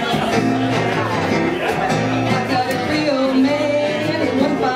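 Live band music: a woman singing lead vocals into a microphone over the band, played loud in a small club.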